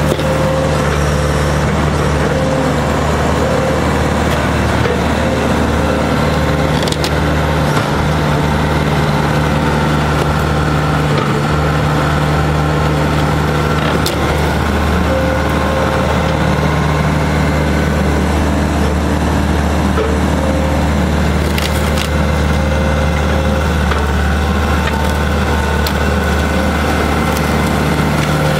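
Excavator's diesel engine running steadily at an even pitch while it pulls down charred timber. A few sharp cracks of burnt wood breaking sound over the engine.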